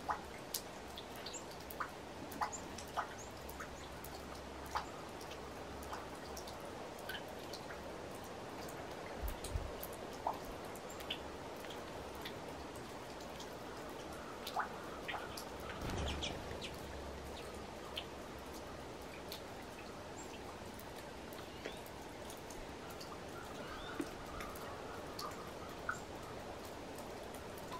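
Quiet outdoor ambience: a steady faint hiss with scattered sharp ticks, a few faint short chirps and a few low rumbles.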